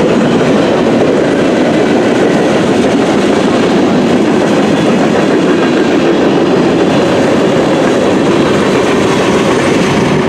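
Freight cars of a Canadian National mixed freight train rolling past, a loud, steady rumble and rattle of steel wheels on the rails.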